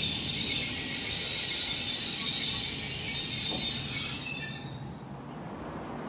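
A Tokaido Shinkansen train running through the station at speed, a steady high rushing hiss from the train. About four seconds in the sound drops away sharply to quiet platform background.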